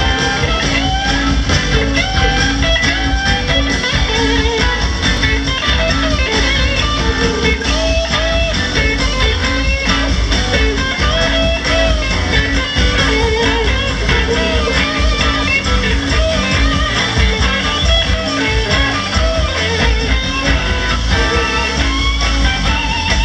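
Live rock band playing through an outdoor concert PA, with a melodic electric guitar lead over bass and drums.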